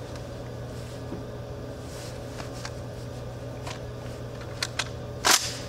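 A single shot from a Charles Daly N4S 12-gauge semi-automatic shotgun near the end, preceded by a few faint clicks and taps.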